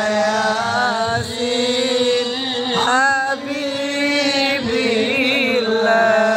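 Islamic devotional chanting: a single voice holds long, drawn-out notes with wavering, ornamented turns.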